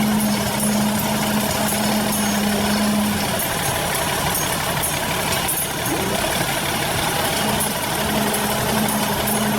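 Vintage Deutz-Fahr tractor engine running steadily. A steady low drone carries through the first three seconds, fades, and returns near the end.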